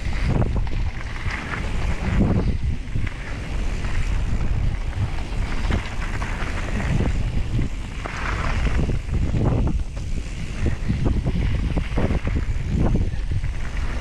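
Wind buffeting the microphone as a mountain bike descends fast on a dirt trail, with a steady low rumble and many short knocks and rattles from the bike going over bumps.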